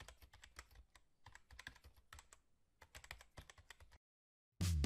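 Faint, irregular clicking like keyboard typing, a sound effect over an animated logo, stopping about four seconds in. After a brief silence, loud music starts just before the end.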